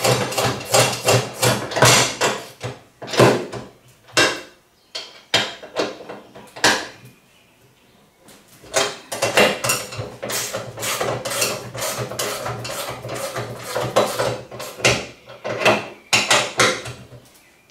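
Hand tools clicking and clanking against the metal axle brackets as their small bolts and locking nuts are tightened down: clusters of quick sharp clicks, with a quieter pause about five seconds in.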